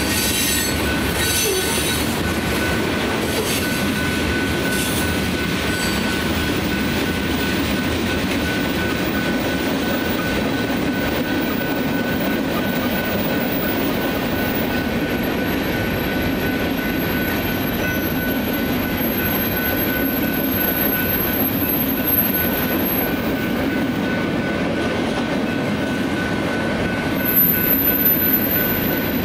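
Freight cars rolling steadily past with the rumble of steel wheels on rail, over the constant ringing of the crossing's General Signals electronic bells. A thin high wheel squeal comes in during the second half, with a few louder clunks near the end.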